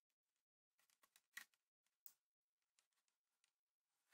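Near silence, with a few faint small clicks of camera parts being handled as the Pentax ME Super's film-speed dial on the rewind side of the top plate is fitted, the clearest about one and a half and two seconds in.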